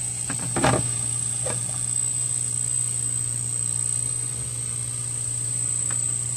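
Steady low hum of the aquarium filter's running water pump, with a steady high-pitched whine above it. A brief louder knock-like sound comes about half a second in, and two fainter ones follow later.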